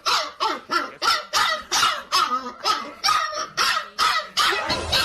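A dog barking rapidly and repeatedly, about three sharp barks a second.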